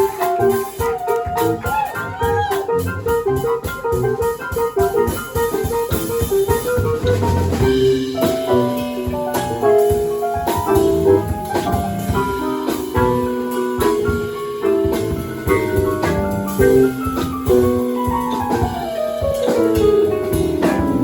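Live band playing an instrumental passage with drum kit and guitar: quick repeated notes over busy drumming at first, a change of figure about a third of the way in, and a long downward slide in pitch near the end.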